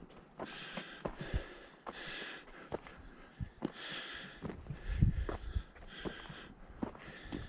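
A hiker breathing heavily, one loud breath about every second or two, over the steady clicks and knocks of his footsteps on the trail.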